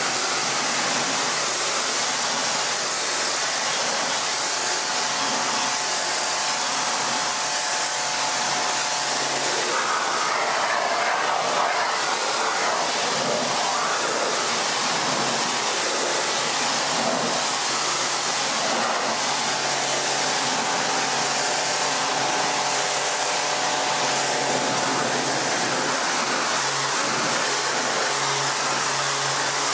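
Kranzle K10/122TS electric pressure washer running, its 40-degree jet from a long lance spraying steadily onto concrete paving with an even hiss of water, over a steady low hum.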